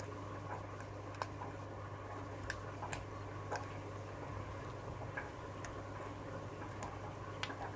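Small, irregular metallic clicks of a pin tumbler lock being single-pin picked with a home-made half-diamond pick: the pick lifting pins and pins setting at the shear line. A steady low hum runs underneath.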